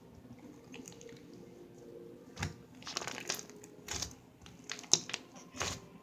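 Slime being squished and pulled by hand, giving a run of irregular sharp clicks and pops, sparse at first and more frequent in the second half.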